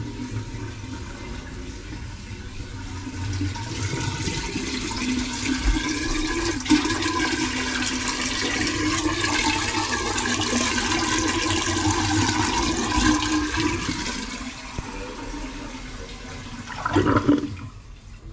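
Water from a just-unblocked kitchen sink draining away fast, running down the waste pipe into a floor drain: a steady rush that swells over the first few seconds, holds, then tapers off as the basin empties. The blockage is cleared and the sink drains freely. A short louder noise comes near the end.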